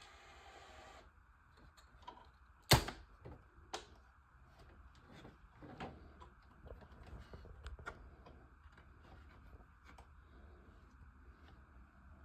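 Small model-kit parts being handled and fitted by hand on a work surface: scattered clicks and taps, with one sharp knock about three seconds in.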